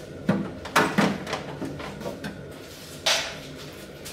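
Carbon-fibre intake being pulled off a car's engine bay: a few sharp clunks and knocks in the first second, then a short scrape about three seconds in.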